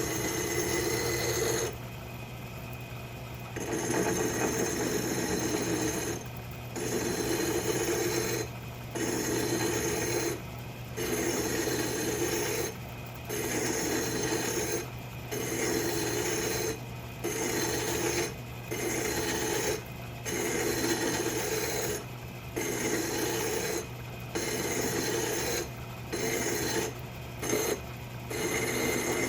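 Hand file rasping against a washer spinning in a metal lathe as its outer edge is bevelled, one long stroke about every two seconds, over the lathe's steady motor hum.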